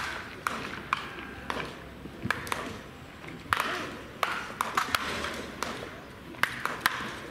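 Bats striking baseballs in toss batting practice: a string of sharp cracks at irregular spacing, some coming a fraction of a second apart as more than one hitter is at work.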